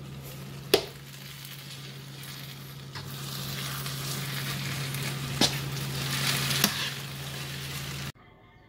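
Mushrooms and chopped bean sprouts sizzling in a non-stick frying pan as they are stir-fried with a metal spoon, the spoon knocking against the pan four times, over a steady low hum. The sound cuts off abruptly shortly before the end.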